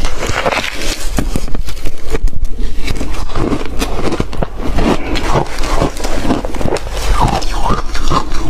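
Ice being crunched and chewed, a loud, continuous run of irregular crackling crunches.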